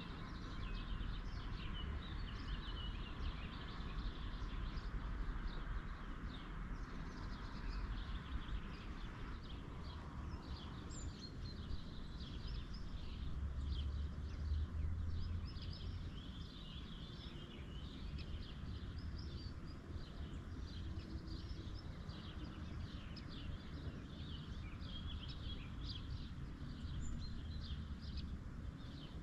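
Birds chirping and twittering in many short calls over a steady low rumble. A hiss present at the start fades out within the first ten seconds.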